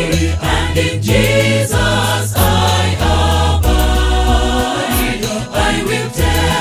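A church choir singing a gospel hymn together, with deep bass notes held underneath and a steady beat.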